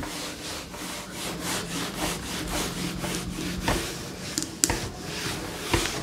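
Cloth rubbing across a whiteboard in quick repeated wiping strokes, erasing marker writing, with a few sharper taps against the board in the second half.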